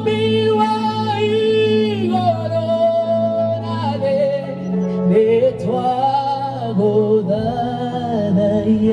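Worship music: a singer holding long, wavering notes that glide from pitch to pitch without clear words, over steady sustained chords.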